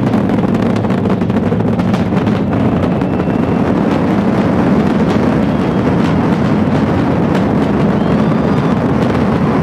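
Steady roar of the Space Launch System rocket climbing under full thrust from its four RS-25 core-stage engines and two solid rocket boosters, with a crackle running through it.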